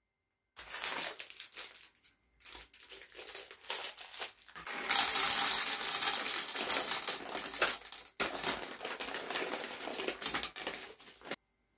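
Dry popcorn kernels pouring from a paper bag into a nonstick frying pan, a dense rattle of many small hard kernels hitting the pan and each other, with the paper bag rustling. The pour is heaviest from about five to eight seconds in, breaks off briefly, resumes, and stops abruptly near the end.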